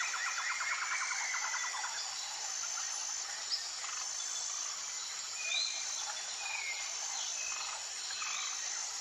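Birds calling outdoors: a fast trill of repeated notes for the first couple of seconds, then scattered short whistled notes. A thin high tone repeats about once a second throughout.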